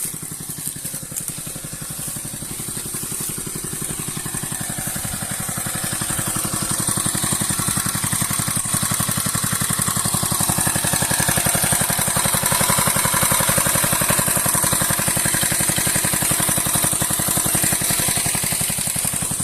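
Small petrol engine of a power sprayer running steadily, driving the pump that pushes herbicide through a long hose, with a steady high hiss over it. It grows a little louder through the middle.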